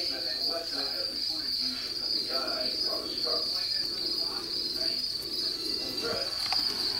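Steady, unbroken high-pitched insect trill, like a cricket chirping continuously, over a faint lower murmur.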